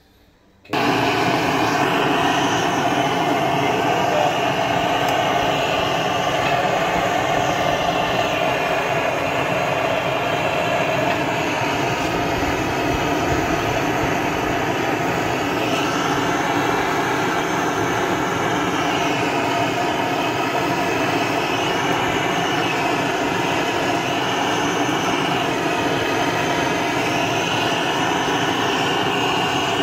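Handheld gas blowtorch running with a steady hiss, its flame played into firewood to get the cooking fire going; it cuts in abruptly just under a second in.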